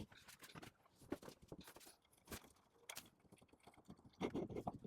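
Faint, irregular clicks and light knocks from handling a potter's wheel and its parts, with a short cluster of softer handling noises about four seconds in.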